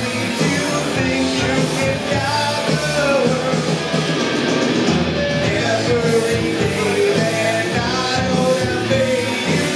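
Live rock band playing: a lead vocalist sings over electric guitars and drums.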